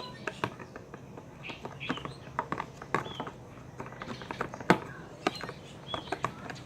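Irregular clicks and taps of a spoon against a mixing bowl while slime is stirred, with one sharper knock a little past halfway.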